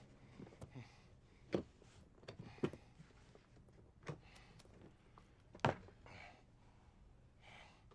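Quiet room with a few scattered sharp knocks and clicks, about four over several seconds, and a couple of soft rustling noises near the end.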